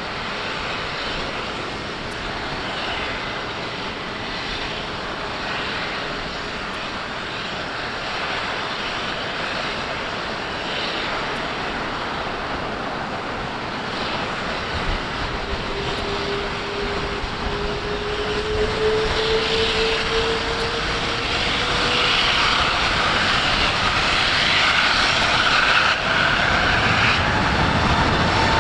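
Jet airliner engines running, with a whine that rises in pitch partway through. The sound grows louder in the second half.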